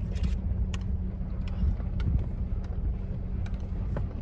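A vehicle driving, heard from inside: a steady low rumble of engine and road, with scattered light clicks and rattles.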